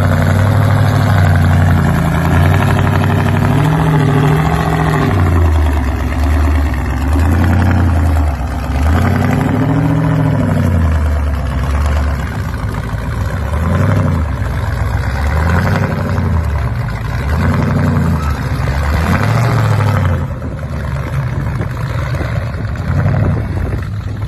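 Lifted square-body pickup's engine revving under load as the truck crawls over rock ledges, its pitch rising and falling again and again as the driver works the throttle.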